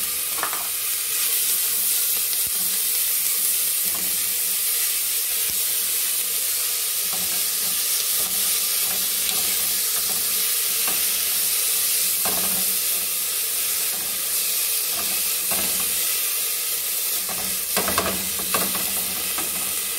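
Diced carne seca (dried salted beef) sizzling steadily as it fries in olive oil with onion and garlic. A silicone spatula stirs it, with a few light scrapes against the pot.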